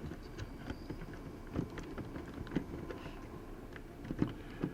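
Irregular light clicks and knocks of a laptop motherboard being worked loose from its case by hand, a few sharper knocks in the second half.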